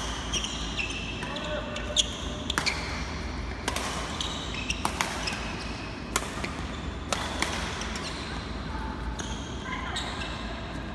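Badminton rackets striking a shuttlecock in a doubles rally: a string of sharp hits, about one a second, with shoes squeaking on the court floor in a large hall.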